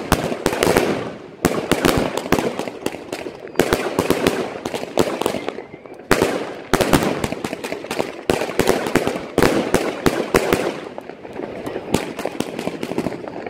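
Many fireworks going off at once: rapid, overlapping bangs and crackling from aerial shells and firecrackers, with louder volleys every couple of seconds.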